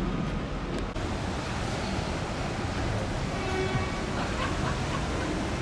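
Steady road traffic noise from vehicles on a busy roadway, with a faint pitched whine for under a second around the middle.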